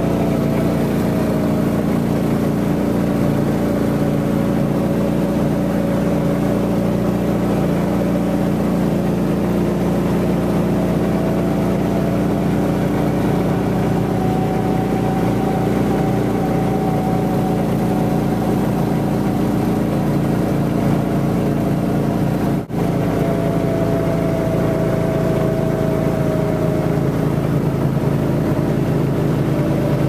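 John Deere Gator utility vehicle's engine running steadily while driving, its pitch drifting slightly up and down.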